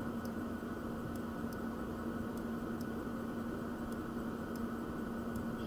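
Steady room background of hiss with a constant low electrical hum, with faint ticks recurring about once a second.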